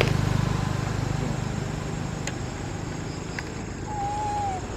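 A steady low engine hum, like a motor vehicle running nearby, that fades off about two and a half seconds in. Near the end comes one short wavering chirp.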